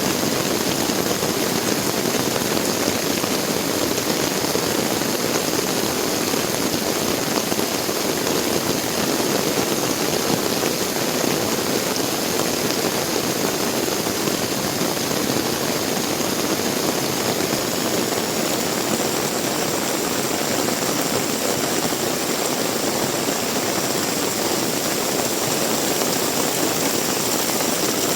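Heavy rain falling steadily, an even, unbroken downpour.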